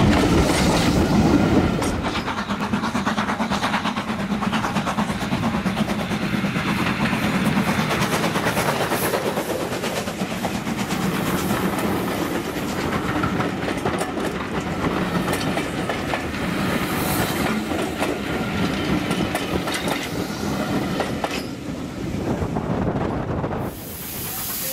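Preserved green passenger coaches of a six-coach steam-hauled train rolling past close by, their wheels clicking over the rail joints. Loudest for the first couple of seconds, then a steadier rolling noise that drops away abruptly near the end.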